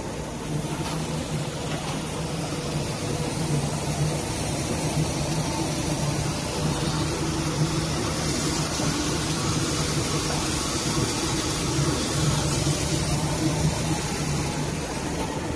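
Automatic marble slab polishing line running: a steady machine drone with a constant low hum and an even rushing wash from its rotating polishing heads and conveyor.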